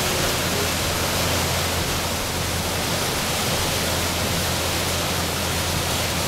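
Steady rushing noise aboard a cruise boat under way: the churning propeller wake behind the stern over a low, even engine hum.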